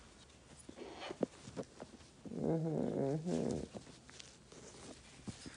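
A blue-and-gold macaw makes one low, wavering call lasting about a second and a half, starting about two seconds in. Short clicks come before and after it.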